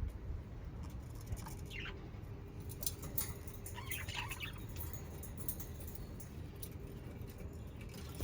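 Budgerigars (budgies) giving scattered short chirps and chatter, a few calls at a time, with the clearest bursts about two and four seconds in.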